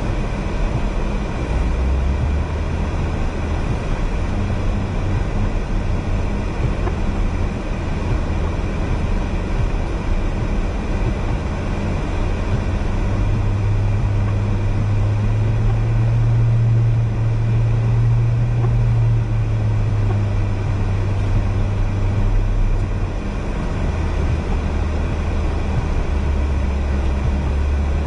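Car engine and tyre noise heard from inside the cabin while driving on a snow-covered road: a steady drone with a constant rush of road noise. The engine note rises about halfway through, holds for several seconds, then drops back.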